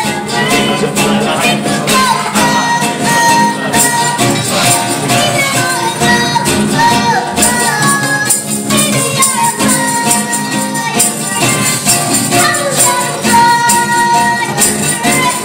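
A young girl singing a pop song, accompanied by a strummed acoustic guitar.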